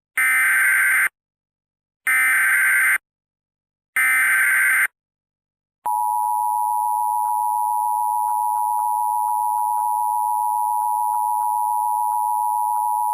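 Emergency Alert System SAME header: three one-second bursts of harsh warbling data tones about two seconds apart. A second or so after the last burst, the steady EAS attention signal begins, a two-tone alarm just under 1 kHz.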